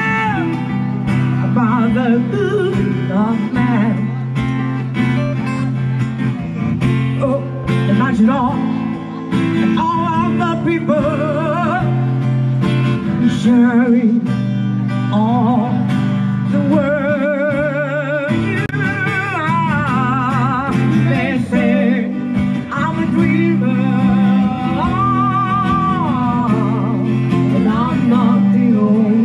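Live acoustic music: a singer holding long notes with vibrato over acoustic guitar accompaniment.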